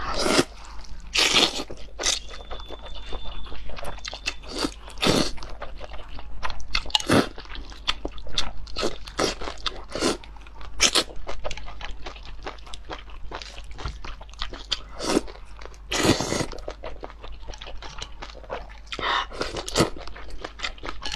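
Close-up eating sounds of cold noodles: repeated wet slurps as long mouthfuls of noodles are sucked in, mixed with chewing and mouth clicks. A few longer slurps stand out, about a second in, around sixteen seconds and near nineteen seconds.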